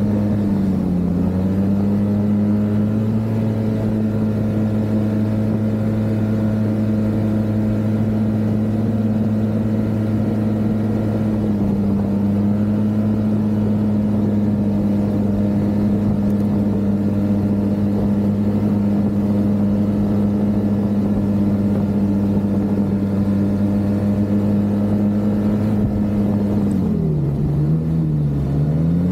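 Snowmobile engine running steadily under way on the trail, its pitch dipping briefly about a second in and again near the end before picking back up.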